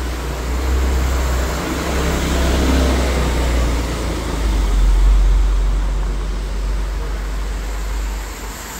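Deep rolling rumble of thunder, building to its loudest about halfway through and easing off near the end, over street traffic noise.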